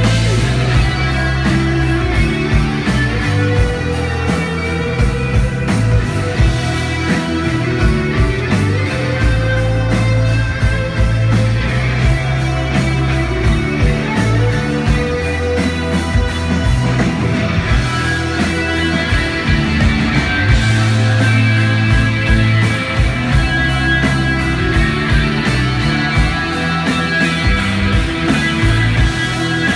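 Live rock band playing loud, with electric guitar over bass and a steady drum beat.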